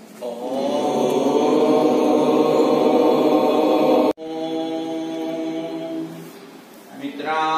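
Voices chanting in long, steady held tones. The first chant breaks off abruptly about four seconds in; a second follows and fades, and a third begins near the end.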